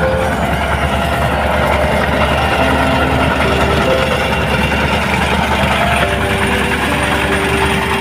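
Motorised rice thresher running steadily, a continuous engine drone, with short held melody notes playing faintly over it.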